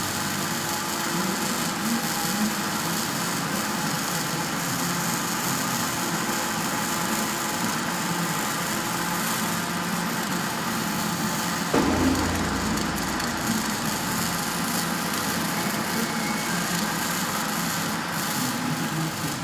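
Steady machine noise with a low hum; a deeper rumble joins suddenly about twelve seconds in.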